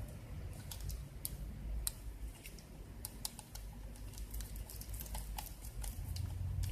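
Irregular small plastic clicks and taps from a laptop being worked on by hand during disassembly, a couple of sharp ones standing out, over a low handling rumble.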